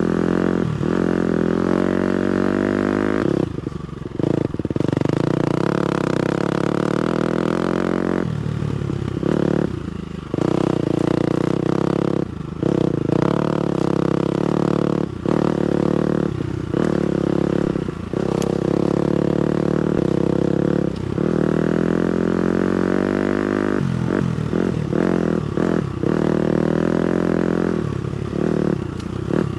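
250cc four-stroke dirt bike engine on a trail ride, revving up and down with the throttle cut off over and over, about a dozen times.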